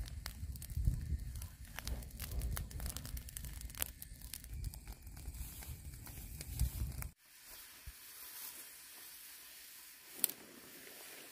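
Dry grass and brush fire crackling and popping rapidly over a low rumble. About seven seconds in it cuts off to a quieter steady hiss, with one sharp click near the end.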